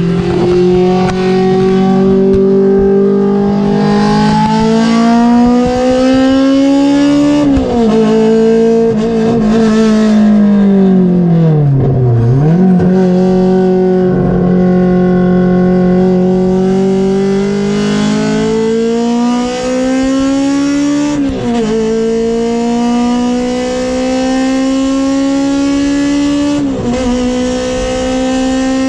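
Toyota Corolla Levin BZR AE111's 4A-GE four-cylinder engine pulling hard at high revs, its pitch climbing steadily through the gears. The revs drop sharply at upshifts about seven seconds in, again past twenty seconds and near the end, and fall away to a low point about twelve seconds in before building again.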